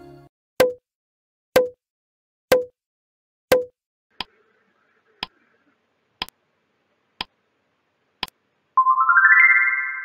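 Quiz countdown-timer sound effect: a sharp tick about once a second, nine in all, the first four heavier. Near the end, a quick rising run of chime notes rings out, marking the end of the countdown as the answer is revealed.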